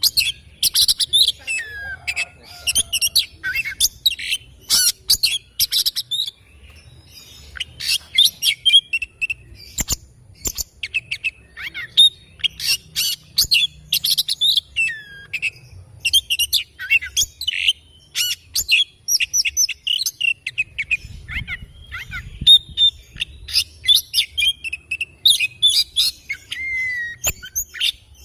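Oriental magpie-robin (kacer) singing a long, varied song of rapid chirps, sharp clicking notes and whistled glides, broken by a couple of short pauses.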